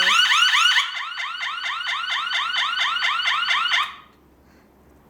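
Retekess TH103 alarm receiver sounding its alarm at the max volume setting: a very loud warbling chirp repeating about five times a second. It drops a little in level about a second in and cuts off abruptly about four seconds in.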